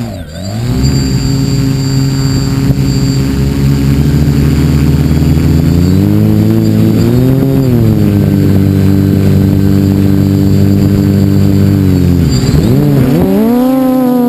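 The quadcopter's four T-Motor brushless motors and propellers whine loudly and steadily close to the onboard camera's microphone while it sits on the launch box. The pitch dips briefly at the start and swells up and back down about six seconds in. Near the end it drops and then climbs higher as the quad lifts off.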